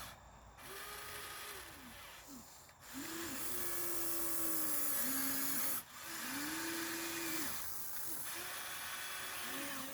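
Small electric motors of a Huina 1593 RC excavator whining in a series of short runs as its functions are worked. Each run rises in pitch as it starts and falls away as it stops, with a higher hiss above.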